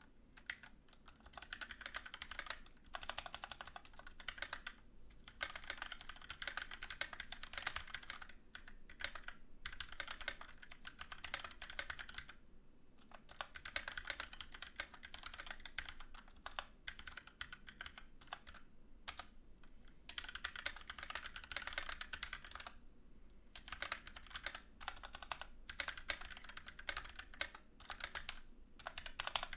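Fast typing on a Keychron K6 hot-swappable mechanical keyboard with Gateron Brown tactile switches: quick runs of key clacks broken by short pauses.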